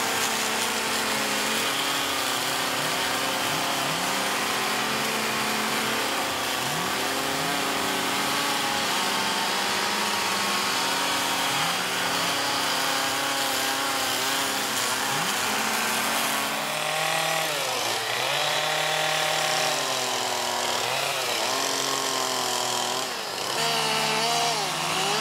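Two-stroke petrol carving chainsaws running and cutting into wood, the engine pitch rising and falling as the throttle is opened and eased off with each cut. More than one saw is heard at once.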